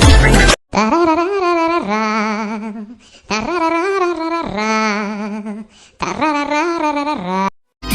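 A ringtone with a solo voice singing a slow melody in three phrases with vibrato, each phrase ending in a short silence. About half a second in, loud electronic music cuts off suddenly just before the voice begins.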